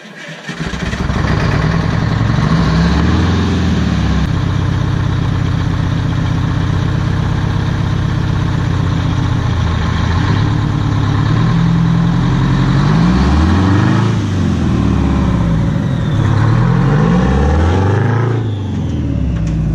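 Detroit Diesel 8V92 two-stroke V8 of a 1985 Peterbilt dump truck running, revved up and let back down several times.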